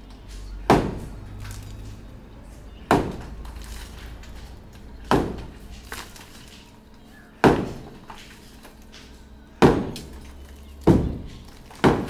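Sledgehammer blows breaking up a concrete roof slab: seven heavy strikes about two seconds apart, the last few coming quicker, each with a short ringing tail.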